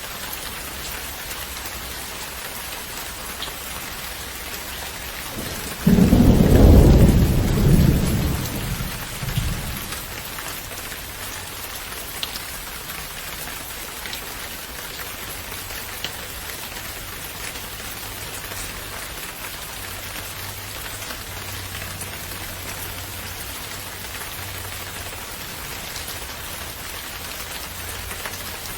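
Steady rain falling, with one loud clap of thunder breaking in suddenly about six seconds in and rumbling away over the next few seconds.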